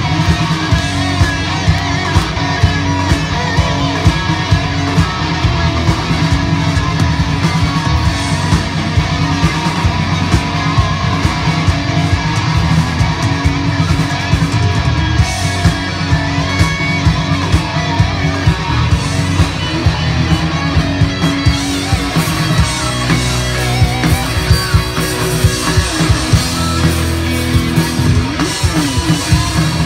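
Live band playing an instrumental passage with a steady beat, loud throughout.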